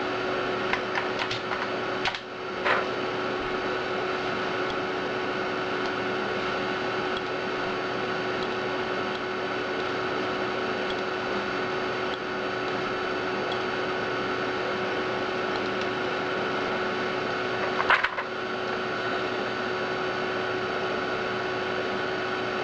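Steady whirring hum with a constant whine from an Amiga 4000's hard drive and power supply. A few short clicks come about one to three seconds in and once more about eighteen seconds in.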